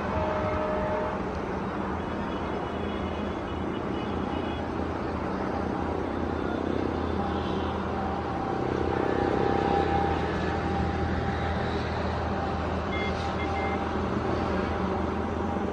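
Indian Railways WDG-5 diesel locomotive's 16-cylinder EMD 710 two-stroke engine droning steadily in the distance as it approaches slowly at the head of a freight train.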